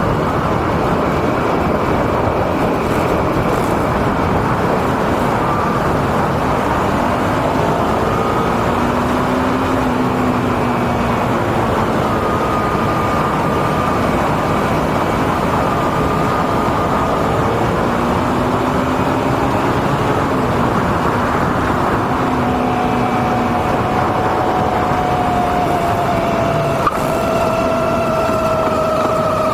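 Honda VT250 Spada's V-twin running with steady loud noise, over which a thin whining tone comes and goes and drifts in pitch. It is an abnormal noise that the owner believes comes from the speedometer.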